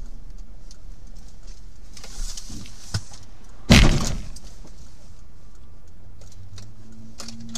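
Car collision heard from inside the dashcam car: one loud impact about four seconds in, as the car strikes a sedan crossing close in front, over steady road and engine noise.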